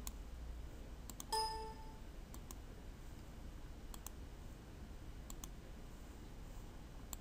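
Computer mouse clicks, mostly in quick pairs, every second or so, as dialog boxes are clicked through. About a second and a half in there is one short, bright chime that fades quickly.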